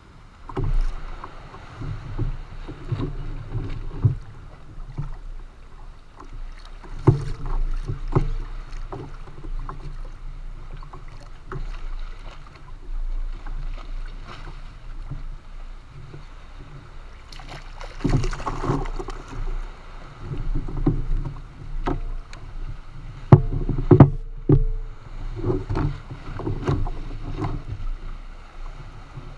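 Water slapping and sloshing irregularly against a plastic fishing kayak's hull in choppy sea, with a few sharp knocks of gear against the boat, loudest about two-thirds of the way through.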